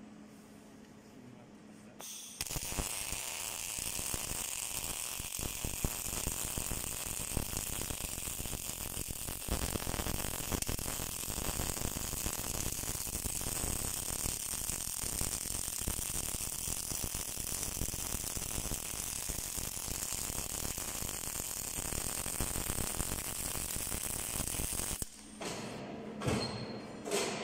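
Automatic MIG welding arc crackling steadily as a CNC circular-seam welding machine runs a weld joining a flange to the end of a steel pole. The arc strikes about two seconds in, after a faint hum, and cuts off sharply a couple of seconds before the end, followed by a few light knocks.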